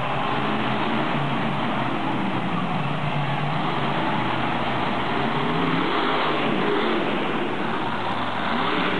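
Monster truck engine running loud and revving, its pitch rising and falling around the middle.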